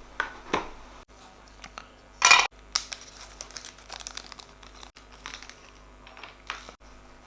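Packaging crinkling and rustling as a small accessory is unwrapped by hand, in short irregular bursts, the loudest a brief rustle a little over two seconds in.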